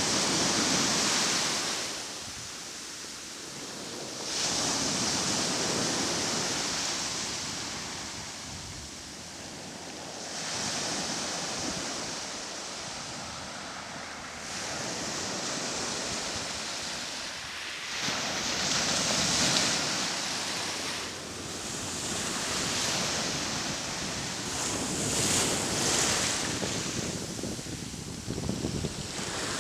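Sea surf: waves breaking and washing up, the hiss swelling and falling back about every five seconds.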